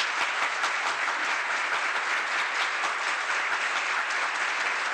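Studio audience and contestants applauding, a dense and steady clapping that greets the last contestant named through to the next round.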